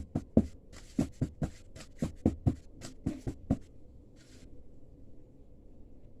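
A cake mould full of batter knocked on the worktop a dozen or so times in quick succession, settling the batter, with each knock a short thud; the knocking stops a little over halfway through.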